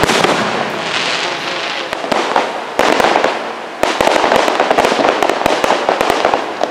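Fireworks display: a few sharp booms of aerial shells bursting, then, from about four seconds in, a dense rapid crackling of crackle stars.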